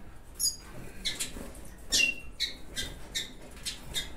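Red siskins at the nest, a female with her days-old chicks, giving about nine short, high, squeaky chirps as she is hand-fed moistened food. One call near the middle is longer and falls to a lower held note.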